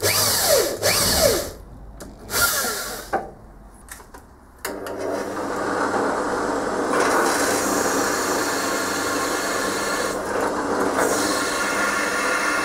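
Handheld electric drill run in a few short trigger bursts, its motor pitch sliding up and down as it speeds up and spins down, spotting dimples through cast bearing-cap holes into a zamak casting. About four and a half seconds in, a drill press starts and runs steadily with a constant hum while drilling the zamak block. The cutting noise grows louder about two seconds later and dips briefly near the end.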